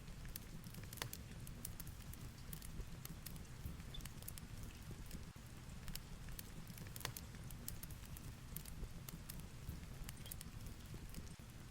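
A fireplace crackling with irregular sharp pops over a steady low rumble of heavy rain and wind.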